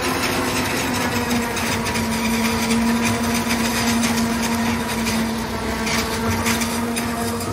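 Tractor driving a forage harvester for silage cutting, running steadily: an even machine drone with a humming tone that grows stronger about two seconds in.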